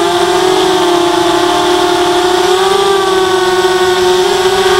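ZMR 250 quadcopter's four brushless 2300kv motors spinning 5x3 props, a loud steady buzzing whine picked up by the onboard camera. The pitch sags slightly, then rises a little about two and a half seconds in as the throttle changes.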